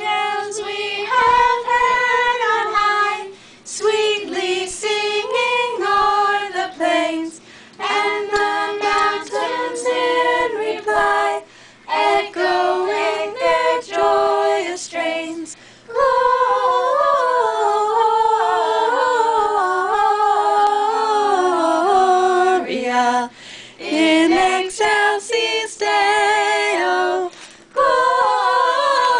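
A small group of carolers singing a Christmas carol a cappella, led by women's voices, in phrases with short breaks between them. About halfway through, several voices sing together more fully.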